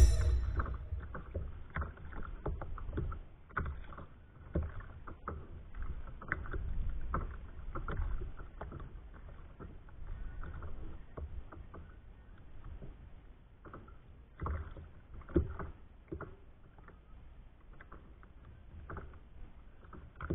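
Water lapping against a kayak's plastic hull, with scattered small knocks and clicks of gear, sounding muffled. It opens on the tail of a loud hit.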